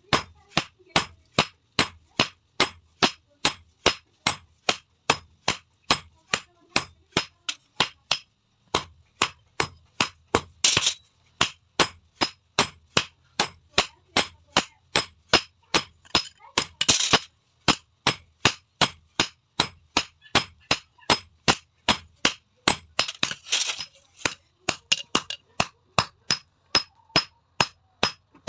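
Hand hammer forging a red-hot steel rod on an anvil: a steady run of ringing clangs, about two blows a second, with a brief pause about eight seconds in. A few short hissy noises come between the blows.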